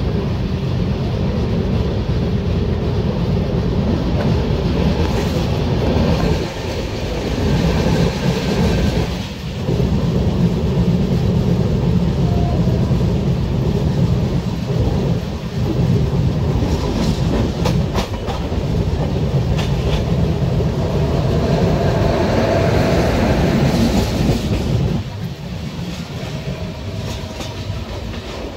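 Steady rumble and clickety-clack of a moving passenger train's wheels on the rails, heard from the open door of a coach, with a few sharp clicks over rail joints. The rumble eases somewhat a few seconds before the end.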